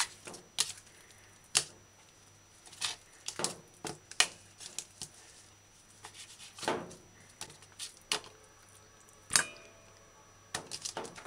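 Small kitchen knife trimming raw chicken thigh on a plastic cutting board: irregular short knocks and clicks of the blade against the board, with quiet gaps between.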